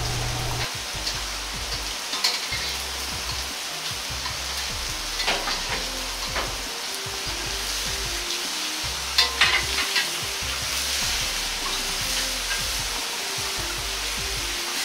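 Pork-and-tofu hamburger patties sizzling in oil in a wok, steady frying hiss, while a metal turner scrapes and clacks against the wok a few times as the patties are flipped.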